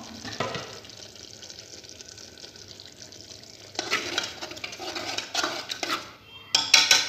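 A spoon stirring and scraping a sizzling tomato and onion mixture in a metal pot, with the scraping heaviest from about four seconds in. A few loud metal clanks come near the end.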